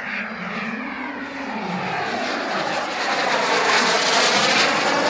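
Turbine jet engine of a large radio-controlled F-104 Starfighter model flying past: a rushing whine that grows louder to a peak about four seconds in, its pitch falling as it goes by.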